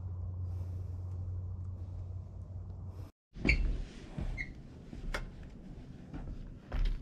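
A steady low rumble for about three seconds cuts off abruptly. Then footsteps and a trekking pole's tip knock on metal grating stairs, with two short squeaks, the loudest knock and squeak about half a second after the rumble stops.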